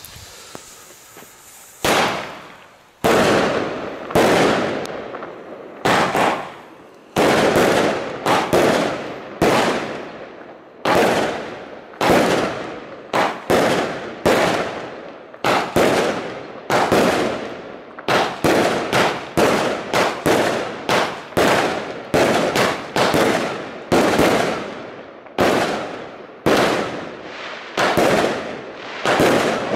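Lesli Thunder Kong Brutus firework battery firing shot after shot. The first bang comes about two seconds in, then sharp bangs follow about once a second, each fading away in a noisy tail before the next.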